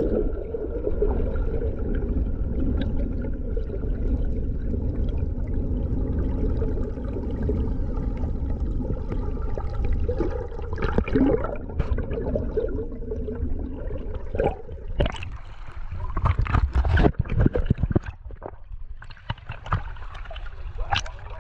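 Muffled rush and gurgle of water heard underwater as the camera is pulled along beside a sailboat's hull under sail. From about two-thirds of the way in, sharp irregular splashes and knocks as the camera moves up through the surface.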